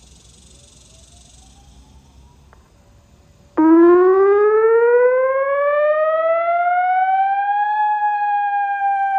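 ATI HPSS-32 electronic outdoor warning siren starting its wail: about three and a half seconds in it comes on suddenly at full volume, its pitch rising for about four seconds and then beginning a slow fall.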